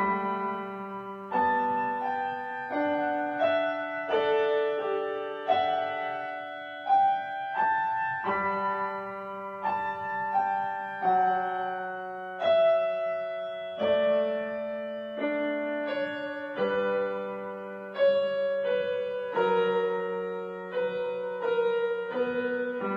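Background piano music: slow, gentle notes and chords struck one after another, each ringing on.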